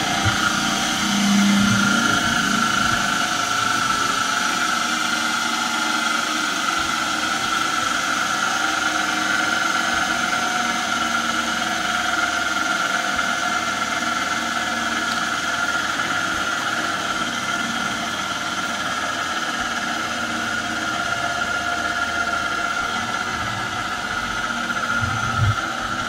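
Blacksmith's forge running steadily: a constant mechanical hum with a held whine and hiss, with a brief low knock shortly before the end.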